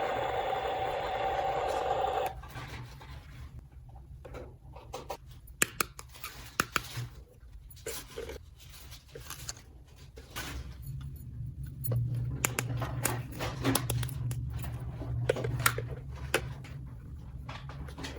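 Small plastic toy pieces being handled, making scattered sharp clicks and taps over a low steady hum. A steady tone plays for the first two seconds and then cuts off.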